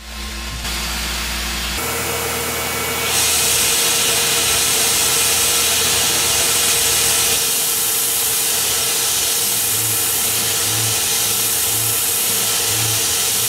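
Tormach PCNC mill running an end mill through aluminum, cutting a circular pocket: a steady machining whine with a loud, high hiss that comes in about three seconds in and holds steady.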